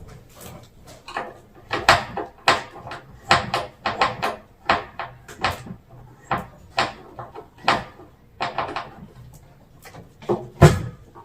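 Bed frame being taken apart by hand: a run of irregular knocks and clicks, a few a second, as parts and screws are worked loose, with a heavier thump near the end.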